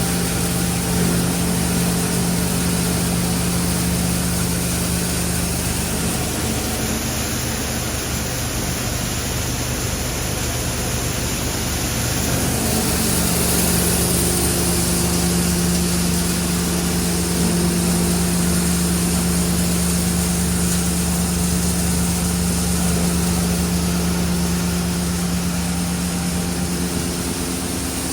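FRS BK 60 cable granulating plant running steadily: a machine hum with a few steady tones under an even rushing noise. The hum shifts for several seconds in the first half, then settles back.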